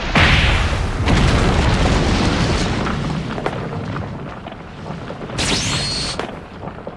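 Anime-style fight sound effects: two sudden explosion booms close together, each trailing off into a long rumble, then a short rising whoosh with a thin high ring near the end.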